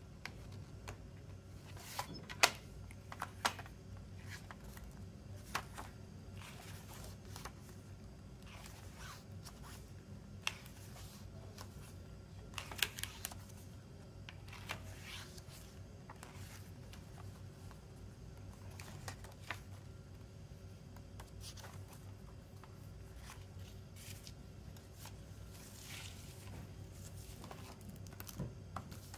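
Plastic CD jewel case and its paper photo booklet being handled: scattered small clicks and rustles as the case is opened and the pages are turned, with a few sharper clicks, the loudest about two seconds in and again near thirteen seconds.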